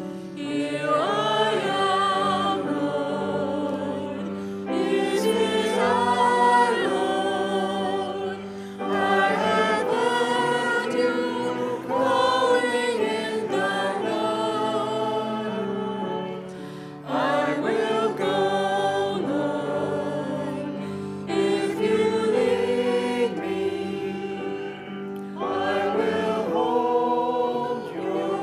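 A hymn sung by many voices together, in phrases a few seconds long with short breaks between them.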